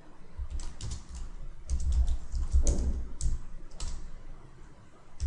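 Computer keyboard typing: irregular key clicks with dull low knocks under them, thinning out near the end.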